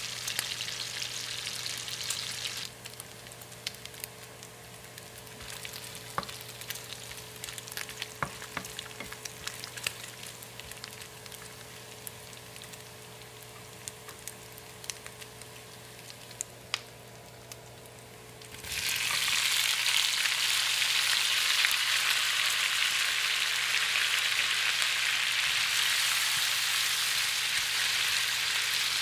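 Chopped bacon frying in a pan, a steady sizzle with scattered sharp pops of fat. About two-thirds of the way through, the sizzle suddenly gets much louder and stays loud as sliced onions, tomatoes and peppers cook in the hot bacon fat and are stirred with a wooden spoon.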